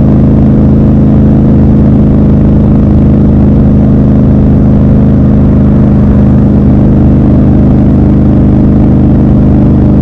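Triumph Scrambler 1200 XC's 1200 cc parallel-twin engine running at a steady engine speed while the motorcycle cruises, a loud, even exhaust note heard from the rider's seat.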